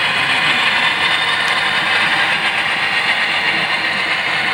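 HO-scale model freight train rolling along the track: a steady mechanical whirr of the locomotive's drive and the cars' wheels on the rails.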